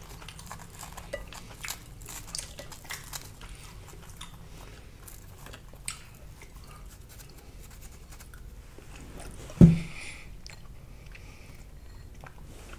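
Crispy fried batter crumbs crackling and crunching as they are pressed by hand onto a skewered sausage: a scatter of small crackles, with one dull thump about ten seconds in.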